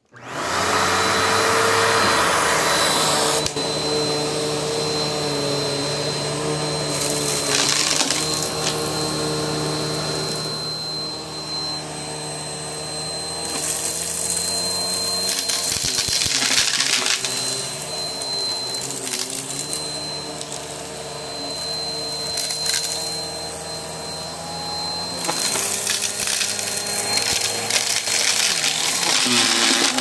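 Bissell upright bagless vacuum cleaner switching on abruptly and running on carpet, with a steady high whine over its motor hum. The rushing of the suction swells and eases every several seconds as it is worked over the carpet.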